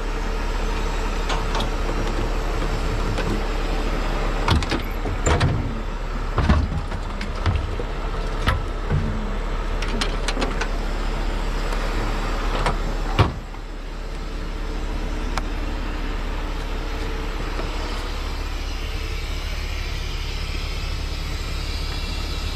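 Heavy rotator tow truck's diesel engine running steadily, with a string of metal knocks and clanks as the rigging is taken loose from the load. A sharp knock comes about thirteen seconds in, after which the engine sound dips and slowly builds back to a steady run.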